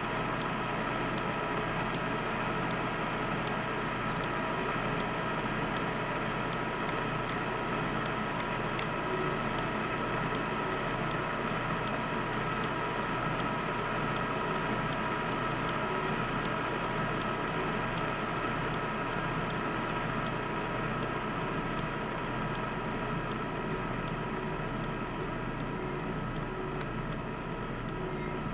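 A radio jamming signal playing from a radio receiver: a steady buzz made of several held tones, with sharp ticks about twice a second running through it.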